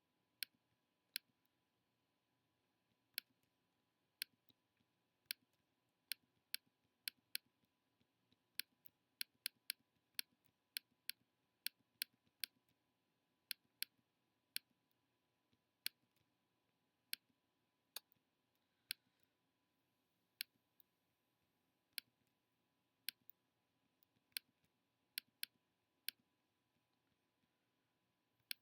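Computer mouse clicking at an uneven pace, single clicks and quick runs of two or three, during photo retouching work in Photoshop.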